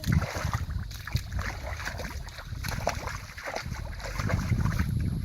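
Water sloshing and splashing with irregular small knocks, over a low rumble of wind on the microphone.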